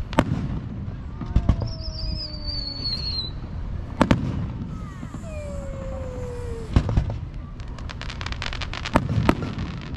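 Fireworks display: aerial shells bursting with sharp booms every two to three seconds, two in quick succession near the end, and a rapid run of crackling between them.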